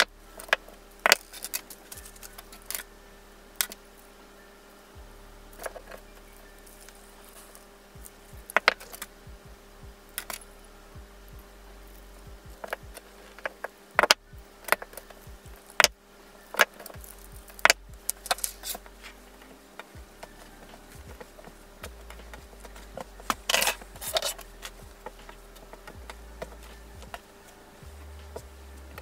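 Small metal key-fob hardware (clasps and split rings) clinking and clicking as it is handled and clamped with key-fob pliers on a table. The taps and clicks are irregular, with the loudest about halfway through and another cluster a little later.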